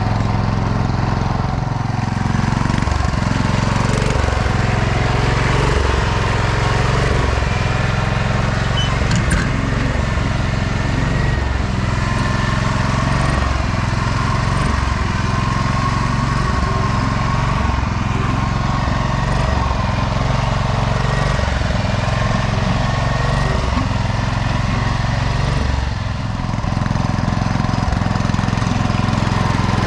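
Small garden tractor engine running steadily under load as it tows a lawn roller.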